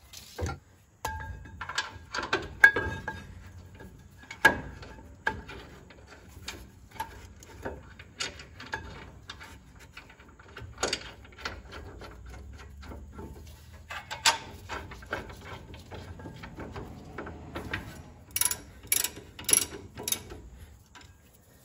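Metal clinks and knocks, some ringing briefly, as a rear brake caliper bracket holding its pads is fitted over the brake rotor. Near the end comes a quick run of sharp ratchet clicks as the bracket bolts are turned.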